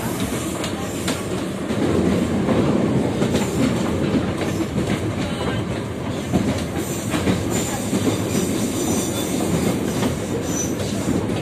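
Kyiv metro Type E train car running at speed, heard from inside the car: a steady rumble of wheels on rail, with irregular clickety-clack clicks over the rail joints.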